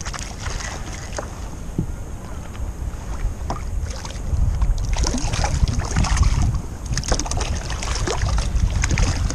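Wind buffeting the microphone over water lapping against a sit-on-top fishing kayak's hull, with scattered small splashes and knocks. It grows louder about halfway through.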